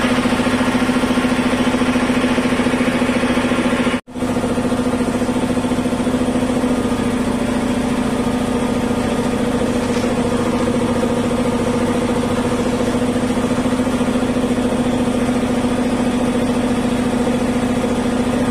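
3 HP ELGI electric-motor reciprocating air compressor, freshly serviced with new oil and filter, running steadily with an even hum as it pumps up the tank. The sound drops out for an instant about four seconds in.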